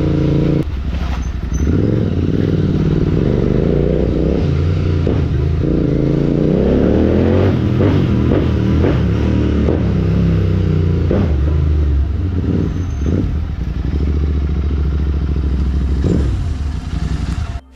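Royal Enfield Continental GT 650's 648 cc parallel-twin engine through a loud aftermarket Red Rooster Stellar exhaust, running and revving up and down several times, with sharp pops and crackles from the exhaust between the revs. It cuts off suddenly near the end.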